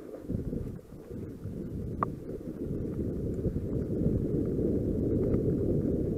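Wind buffeting the microphone over the rumble of mountain bike tyres on a dirt trail, growing louder as the bike picks up speed. A single short tick about two seconds in.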